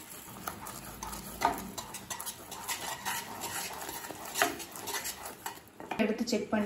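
A wooden spoon stirring boiling jaggery syrup in a pan, with irregular scrapes and knocks of the spoon against the pan.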